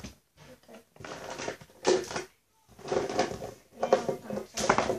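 A girl talking indistinctly in short bursts.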